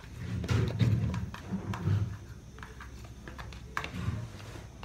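A metal spoon scraping and knocking thick soup out of a plastic food container, with a few sharp clicks and repeated dull knocks as the container is handled.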